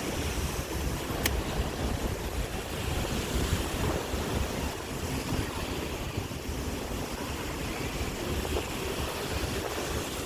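Sea waves washing onto the shore in strong wind, with the wind buffeting the microphone as a steady low rumble; one brief click a little over a second in.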